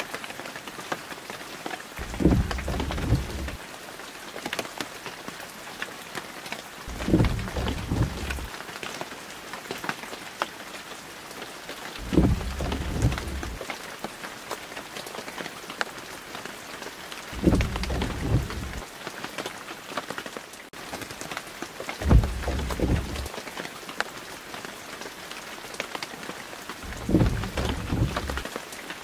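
Steady rain hissing on a wet street, with a deep rumble that comes back about every five seconds and lasts a second or so each time.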